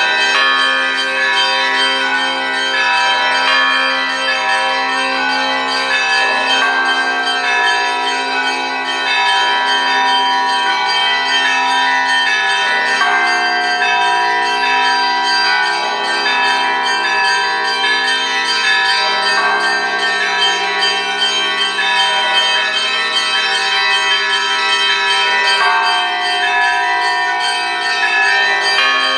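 Russian Orthodox church bells of the Nikolo-Peshnosha Monastery rung by hand in a continuous peal. Many bells ring together, with a heavier stroke about every six seconds over rapid strokes of smaller bells.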